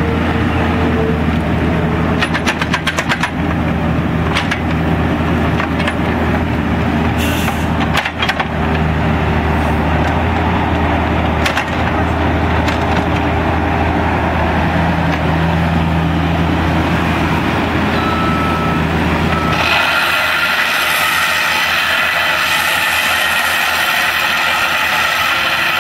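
Cat 304C CR mini excavator's diesel engine running steadily as it works, with a few scrapes and clicks of a rake spreading asphalt. About twenty seconds in the sound switches abruptly to the higher, rattling run of a vibratory plate compactor.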